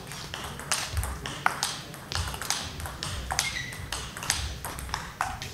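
Table tennis ball in a rally, clicking off the table and the players' bats in quick alternation, about two to three hits a second.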